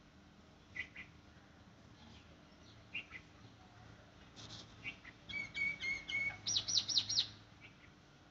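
Birds chirping: a few single chirps, then a quick run of high repeated chirps and trills about five to seven seconds in.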